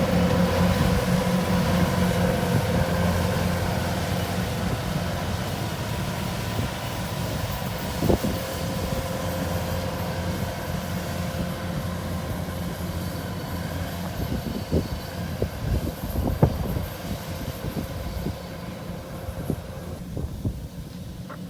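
Rice combine harvester engine running with a steady hum that grows gradually fainter, with scattered short clunks in the second half.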